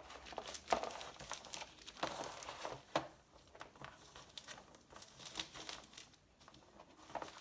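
Plastic parts bag from a gasket kit crinkling and rustling in irregular bursts as small seals are slid back into it, with a couple of sharper crackles about a second and three seconds in.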